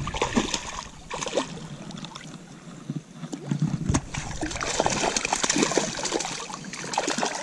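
A hooked fish thrashing and splashing at the surface of shallow water, with short splashes throughout and a louder run of splashing from about four seconds in.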